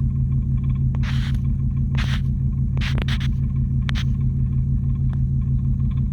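A single 12-inch WDX 2K subwoofer in a 2.7 cubic foot box, driven by a WDX 3K amplifier wired at 2 ohms, playing a loud, deep bass line that pulses steadily. Short hissy hits come about once a second over the bass.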